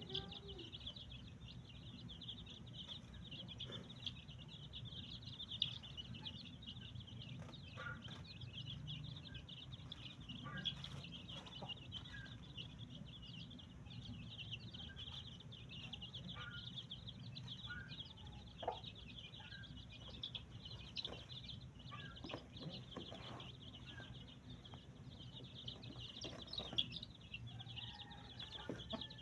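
Small birds calling and chirping now and then over a steady high-pitched chirring that never stops.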